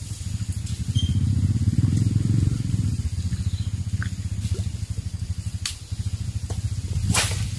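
A small engine running steadily, with a low pulsing rumble. A short burst of hiss comes near the end.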